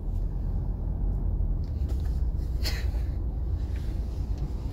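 Steady low rumble of a moving car heard from inside the cabin, with a brief click about two and a half seconds in.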